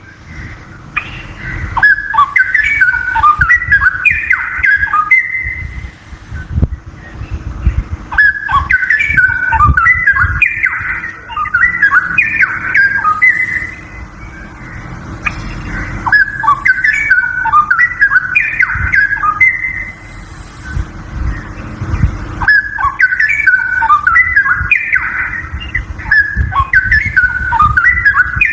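Straw-headed bulbul (cucak rowo) singing: four loud runs of quick, jumping whistled notes, each a few seconds long, with short pauses between.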